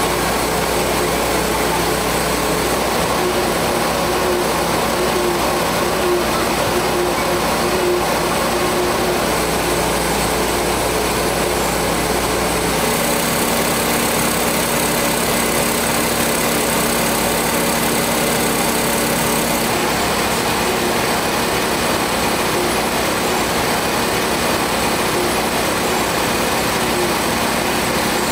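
Steady running noise of banknote production machinery: a continuous even whir with faint steady tones. The mix of the noise changes abruptly about 13 seconds in and again about 20 seconds in.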